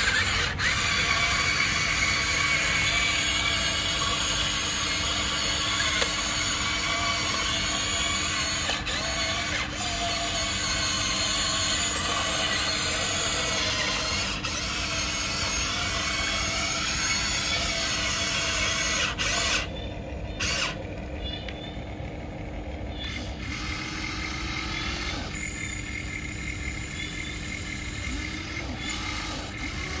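Huina 1594 RC excavator's electric motors and gearing whining as the boom, arm and turntable move, the pitch wavering as the motors work. The high whine drops away about two-thirds of the way through, leaving a quieter low hum.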